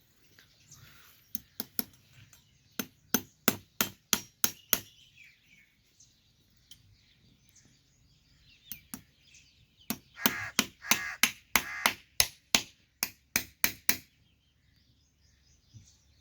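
Farrier's hammer blows on metal in quick runs of strikes, several a second, the longest and loudest run in the second half, where some strikes ring.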